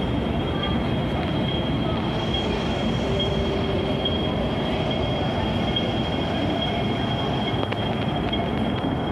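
MTR M-Train electric multiple unit running on the track: a steady rumble with a thin, steady high-pitched tone over it.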